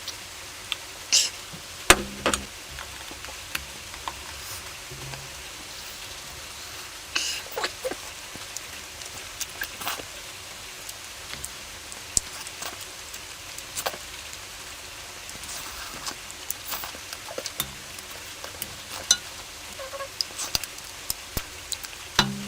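Close-miked eating sounds of a person eating curry: chewing, wet smacks and clicks of the mouth at irregular intervals, with a few louder smacks.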